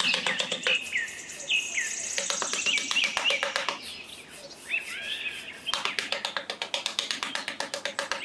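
Small birds chirping in short falling notes, over a quick, even run of sharp taps that pauses briefly about four seconds in and then resumes.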